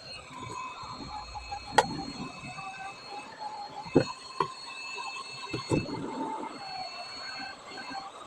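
Gordak hot air rework station blowing hot air onto a solar flood light's housing to soften its adhesive: a steady faint whir with thin high tones, broken by a few light knocks.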